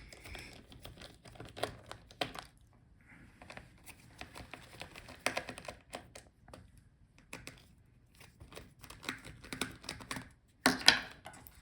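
Hands handling a laptop battery and plastic laptop case: scattered small plastic clicks, taps and light rustling, with a louder clatter of clicks near the end.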